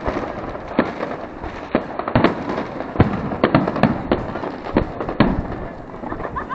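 Fireworks going off: a dozen or so sharp bangs and cracks at irregular intervals, some in quick pairs, over a steady background hiss.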